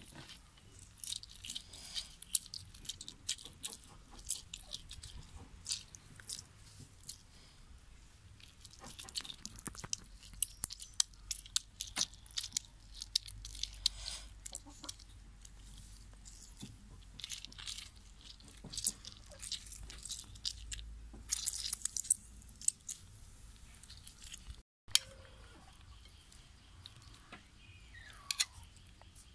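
A small lime squeezed by hand over chopped banana: irregular wet crackles and squelches as the peel and flesh are crushed, thinning out near the end.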